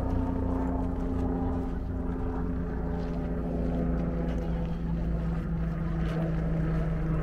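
A motor droning steadily at a low pitch, one tone fading out about halfway through as a lower tone grows stronger.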